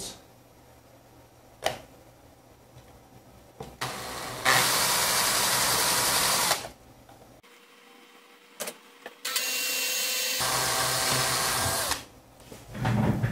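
Cordless drill with a 2.5 mm bit drilling slowly through a plastic panel, in two steady runs of about two seconds each.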